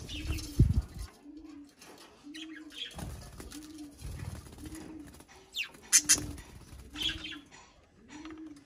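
Budgerigars giving sharp chirps, with a flutter of wings about half a second in, over a dove cooing low and steadily about once a second.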